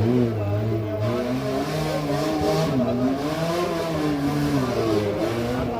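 Off-road 4x4's engine revving hard, its pitch rising and falling again and again, with a rushing hiss joining in about a second in.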